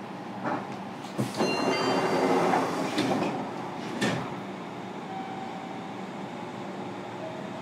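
Passenger doors of a Fukuoka City Subway 1000N-series car sliding at a station stop, heard from inside the car. There is a knock about a second in, about two seconds of sliding noise, then two more knocks about three and four seconds in.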